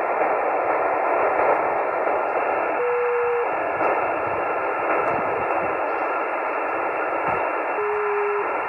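Amateur radio receiver's speaker hissing with band noise while tuned to the FunCube-1 (AO-73) satellite downlink near 145.935 MHz. A short steady tone cuts through the hiss twice, about three seconds in and again near the end.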